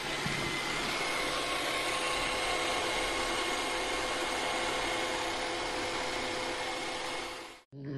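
A eufy robot vacuum running: a steady whirring hum with a few faint steady whining tones above it. It cuts off suddenly near the end.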